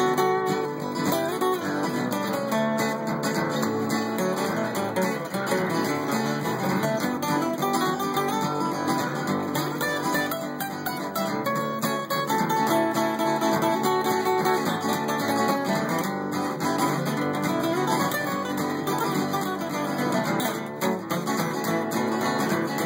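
Steel-string acoustic guitar playing an instrumental passage of a country-rock tune, strummed and picked.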